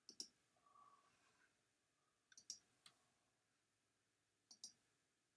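Faint computer mouse clicks, mostly in pairs: one pair just after the start, a few more about halfway through, and another pair near the end, with near silence between.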